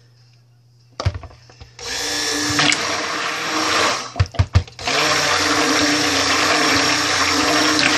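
Electric stick blender running in two bursts through cold-process soap batter, with a pause of about a second in between and a few sharp knocks, as the batter is blended toward a very light trace.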